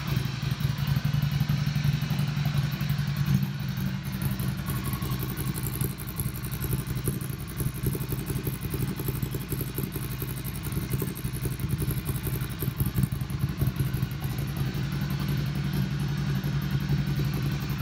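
2020 Ducati Scrambler Icon Dark's air-cooled L-twin idling steadily through a Termignoni SO01 slip-on exhaust with its dB killer removed, giving a loud, even, low exhaust beat.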